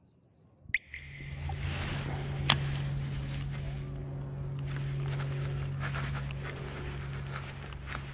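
A steady low motor hum that starts about a second in, with scattered light clicks and one sharp click about two and a half seconds in.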